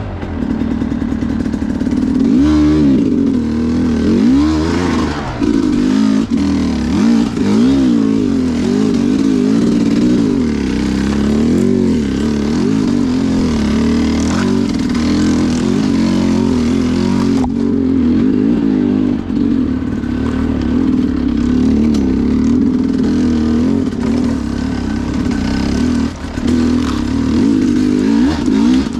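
Two-stroke dirt bike engine under way on rough ground, its pitch rising and falling constantly as the throttle is worked on and off. There is a sharp knock about 17 seconds in.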